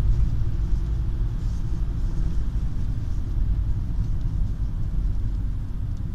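Volkswagen Touran running at about 1700–2000 rpm, a steady low rumble. This is the rev range where the owner reports a whistle setting in.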